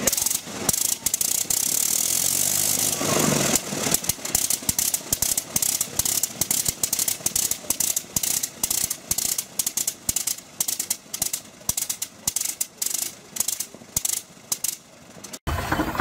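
Rotary aircraft engine on a test stand, hand-propped, running with a string of separate sharp firing pops, about four a second, that grow sparser near the end.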